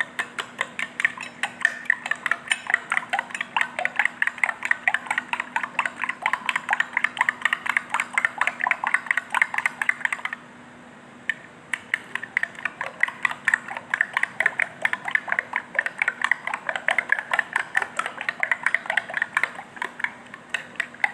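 A metal spoon beating an egg mixture in a glass bowl, clicking against the glass several times a second, with a brief pause about halfway through.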